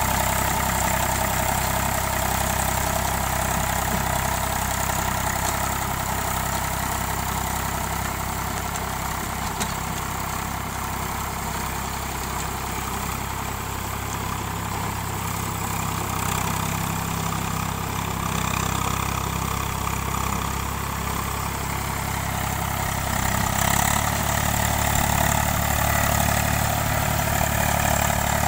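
Farm tractor's diesel engine running steadily as it drags a rotary tiller through a flooded, muddy field. It gets somewhat quieter in the middle, and its low note shifts about three-quarters of the way through.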